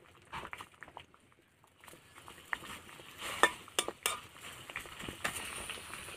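Metal spatula clinking and scraping against a metal karahi as kharkol leaves are stirred in hot water, in irregular knocks with some sloshing.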